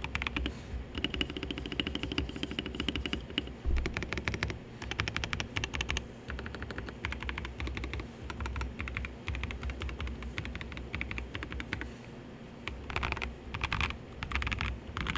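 Typing on a KBD67 Lite mechanical keyboard with lubed Gazzew Boba U4T tactile switches, PBT keycaps, a polycarbonate plate and a foam-filled ABS case: fast runs of keystrokes broken by short pauses, with a few louder strokes near the end. A steady low air-conditioner hum runs underneath.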